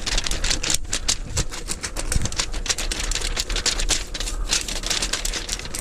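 Dense, rapid crackling and crunching of dry leaves and brush being trampled underfoot.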